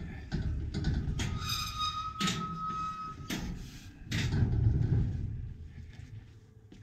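Footsteps on a wooden staircase with several sharp knocks and a low rumble, loudest about four to five seconds in. A steady high squeak runs for about two seconds near the start.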